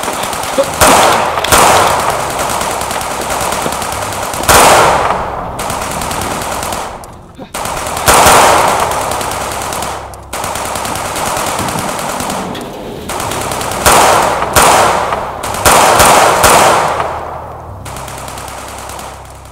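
Heavy gunfire: a dense stretch of rapid fire with loud shots standing out, each trailing off in an echo. The heaviest volleys come about a second in, in the middle, and in a close cluster a few seconds before the end, after which it fades.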